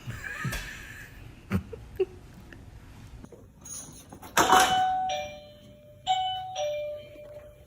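Two-note doorbell chime sounding ding-dong twice in a row about halfway through, each time a higher note followed by a lower one.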